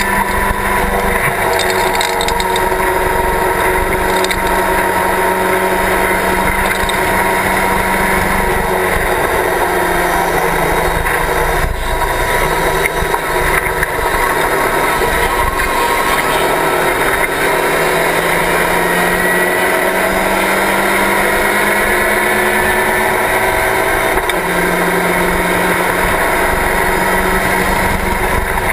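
Race car engine of a Locost kit car running hard, heard from inside its open cockpit together with wind and road noise. The engine note slowly rises and falls as the car accelerates and slows through corners, with a sudden jump in pitch late on.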